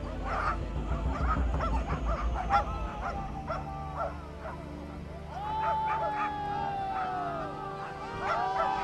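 Greyhounds yelping and barking in quick, excited succession. About halfway through this gives way to long drawn-out howl-like calls that sag slowly in pitch, with several overlapping near the end.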